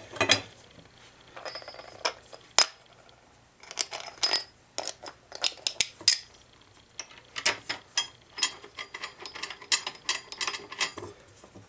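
Light metallic clicks and clinks of a new steel mower blade being handled and seated onto its blade adapter, in scattered taps and short rapid clusters.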